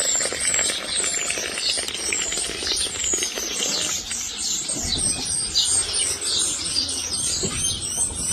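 Many small songbirds chirping and singing at once, a dense chorus of short high chirps and twittering notes.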